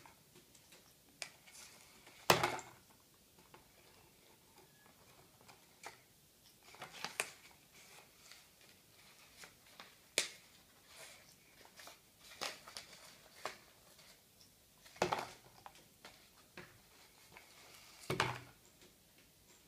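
A cardboard tube knocking and scraping on a wooden table as an African grey parrot handles it with its beak, with scattered light taps and clicks. Three louder hollow thumps stand out, the loudest about two seconds in and the others near the end.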